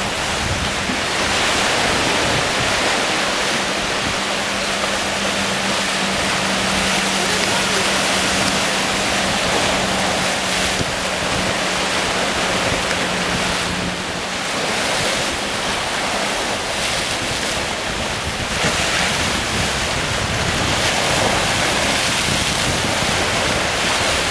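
Ocean surf washing in and breaking over rocks and sandstone ledges, a steady rushing wash that swells and eases with the waves. A steady low hum runs underneath until about halfway through.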